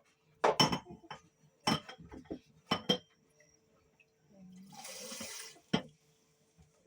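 Kitchen clatter while preparing noodles: several sharp clinks and knocks of dishes or utensils, with about a second of water pouring or running a little past the middle.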